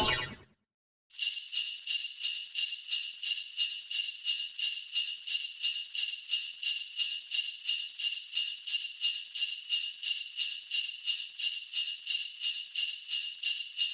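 Sleigh bells shaken in a steady rhythm, about three to four shakes a second. They start about a second in, just after music cuts off.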